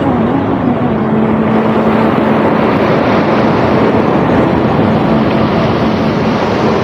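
Sea water rushing loud and steady, with wind on the microphone and a faint steady hum underneath.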